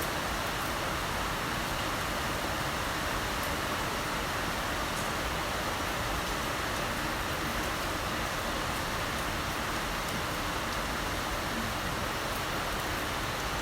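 Heavy rain falling steadily: an even, unbroken hiss with a few faint drop ticks.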